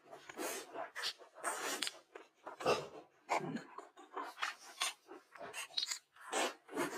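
Close-miked eating sounds: food being chewed and crunched in quick, irregular bites, with soft mouth noises between them.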